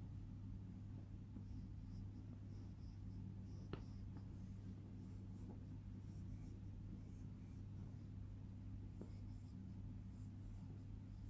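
Wooden pencil scratching faintly on paper in short drawing strokes, over a steady low electrical hum. One sharp tick stands out about a third of the way in.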